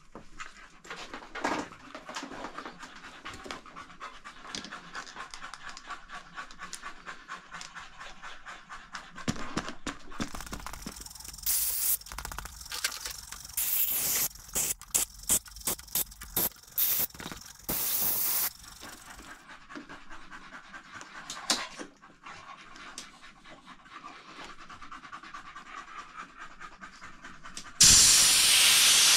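A dog panting, with a string of short loud hisses of compressed air in the middle. Near the end a long, loud blast from a compressed-air blow gun pushed under a new handlebar grip, the air letting the grip slide onto the bar.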